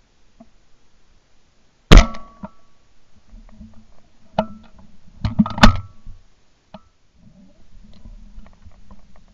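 Two loud shotgun shots from a Beretta Silver Pigeon 20-bore, the first about two seconds in and the second a few seconds later. Fainter shots come just before the second.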